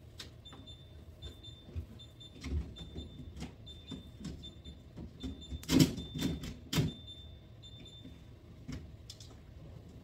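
French-door refrigerator's door-open alarm beeping: a high electronic pip repeating about twice a second, the last few beeps held longer, stopping a couple of seconds before the end, sounding because the doors have been left open. Containers knock on the shelves as food is put back, the loudest knocks about six seconds in and again a second later.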